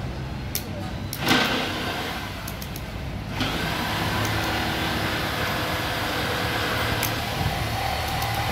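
A few light metal clicks from steel bolt fittings and brackets being turned by hand on a wooden sofa base, over a steady mechanical hum and hiss. A louder rush of noise comes in about a second in and lasts about two seconds.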